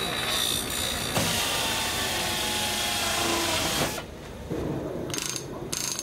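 A bench grinder running, with a loud, even grinding noise for most of the first four seconds. It then gives way to a power drill boring into aluminium sheet in short bursts, two brief runs near the end.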